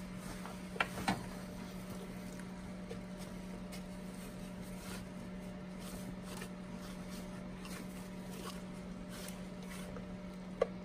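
Faint clicks and taps of vise-grip pliers working a spring hose clip onto a coolant hose at a throttle body, a couple of them about a second in. A steady low hum runs underneath.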